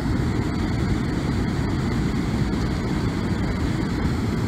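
Steady low rushing of Susquehanna River water spilling over the Fabridam, an inflatable dam, unbroken and even in level.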